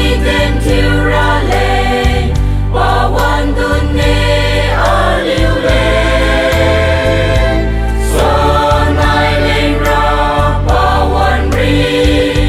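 A choir, mostly women's voices, singing a hymn together over a steady low instrumental accompaniment, the sung notes held and changing every second or so.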